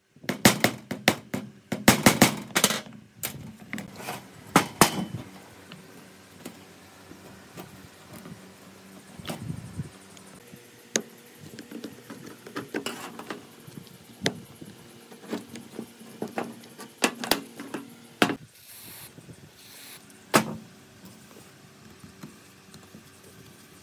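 Metal knocking and clanking as an old power-cutter housing is handled and taken apart: a quick run of sharp metal knocks in the first few seconds, then scattered clicks and scraping from a screwdriver working against the metal casing and a rusted screw.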